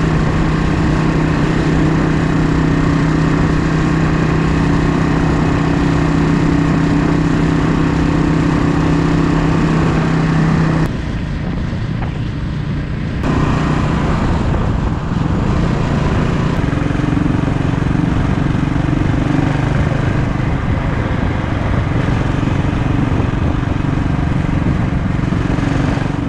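Yamaha SR500 single-cylinder engine running steadily while riding at speed, under a constant rush of wind. About eleven seconds in, the engine note drops away for a couple of seconds, then comes back lower in pitch.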